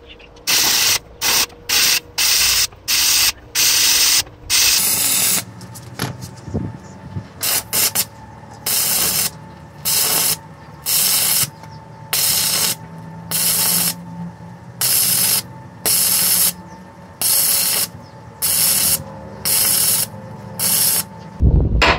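Electric arc welding in short, intermittent bursts, the arc crackling and hissing each time it is struck and broken: quick bursts about two a second at first, then, after a short pause, about one a second, as the bracket is stitch-welded onto the steel tank.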